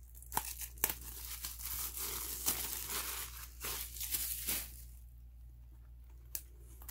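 Plastic shrink-wrap crinkling and tearing as it is peeled off a CD album, with a few sharp clicks in the first second. The handling turns quieter for the last couple of seconds.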